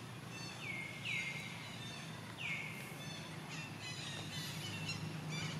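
A run of short, high-pitched animal calls that slide down in pitch, the loudest ones about a second in and about two and a half seconds in, over a steady low hum.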